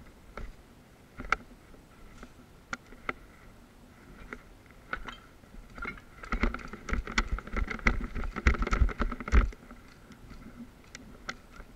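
Footsteps crunching and clattering over loose broken bricks and debris: scattered knocks at first, then a dense run of steps and thumps from about six seconds in to nine and a half.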